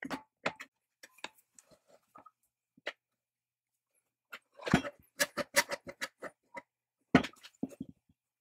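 Metal parts clicking and knocking while a coil spring on a rod is fitted into the painted housing of a chain mortiser. There are a few light clicks at first, a quick run of clicks about halfway through, and a heavier knock near the end.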